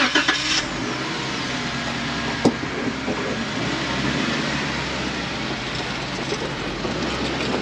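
Tow vehicle driving slowly up a wet concrete boat ramp, pulling the empty boat trailer out of the water: steady engine and tyre noise, with a single sharp knock about two and a half seconds in.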